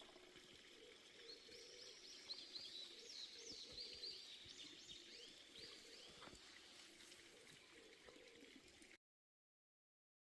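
Faint birdsong: a run of quick high chirps repeated over a few seconds against quiet outdoor ambience, then the sound cuts off abruptly to silence about nine seconds in.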